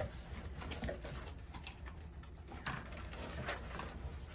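Cardboard box being opened by hand: the flaps are folded back and the paper and packing inside are rustled, with a few scattered scrapes and taps.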